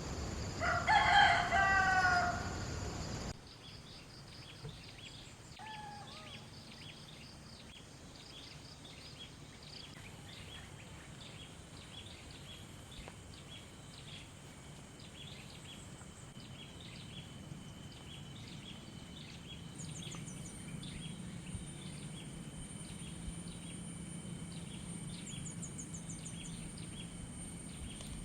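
A rooster crows once, loudly, for about three seconds, and the sound cuts off abruptly. After that come quieter rural sounds: repeated short high bird chirps and, about two-thirds of the way in, a steady high whine.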